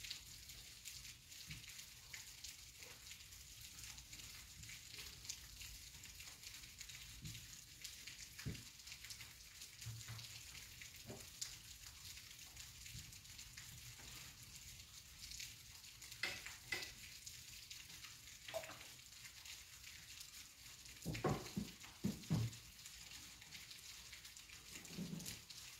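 Light rain falling with a faint, steady hiss, scattered with irregular drips and taps; a few louder taps come near the end.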